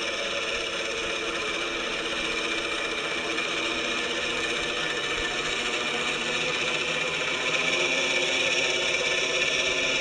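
Quadcopter in flight, its propellers and motors whirring together with a simulated helicopter engine sound played from an onboard MrRCSound V4.1 sound system. The sound is steady and grows a little louder about three-quarters of the way in.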